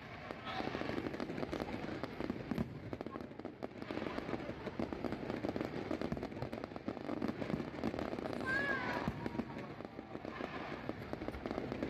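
Fireworks display: many aerial shells bursting overhead in a dense, continuous crackle of small pops, with no single bang standing out.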